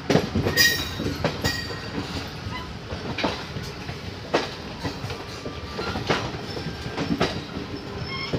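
Passenger train coach running at speed through a station yard: a steady rumble with irregular clattering knocks as the wheels cross rail joints and points, and a few brief high squeals near the start and end.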